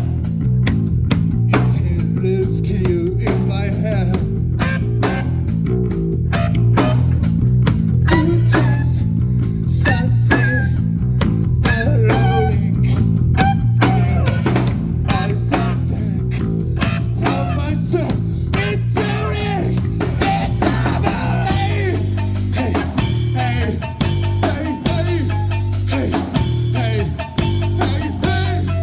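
Rock band playing live: electric guitar lines over a steady bass and drums, with the bass pattern changing about two-thirds of the way through.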